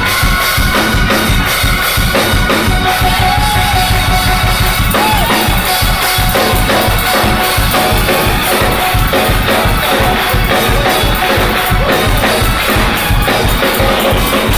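Gospel band music driven by a fast, busy drum kit beat with bass drum and snare, and sustained instrument tones over it.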